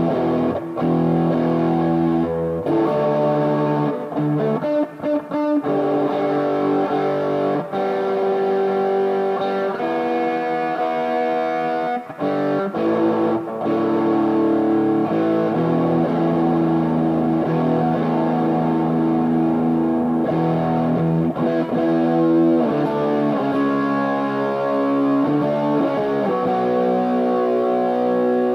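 Greco WS-STD electric guitar being played: chords and notes left to ring, starting suddenly after a quiet moment, with a few short breaks between phrases in the first half.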